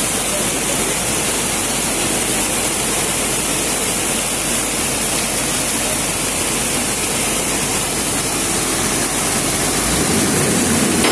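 Muddy floodwater rushing in a torrent, a steady, dense rush of noise.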